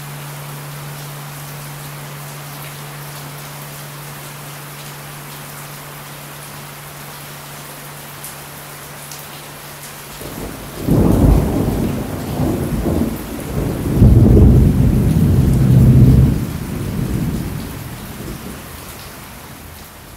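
Steady rain falling, with a low steady hum under it that stops about halfway through. A loud thunderclap then breaks and rolls in several rumbles for about seven seconds, fading away, while the rain carries on.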